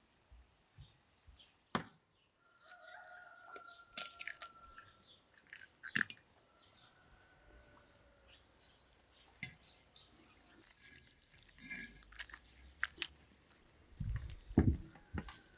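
A rooster crowing a few seconds in, with scattered sharp clicks and knocks. Near the end come dull thuds of a hand working dough in an enamel bowl.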